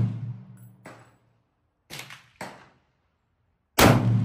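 Rifle fire on a shooting range. The echoing tail of a loud shot dies away at the start, fainter sharp reports come about one and two seconds in, and another loud rifle shot follows near the end.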